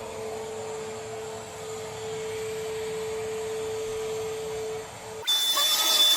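Vacuum cleaner running with a steady hum, then an abrupt cut about five seconds in to a louder sound with a high-pitched whine.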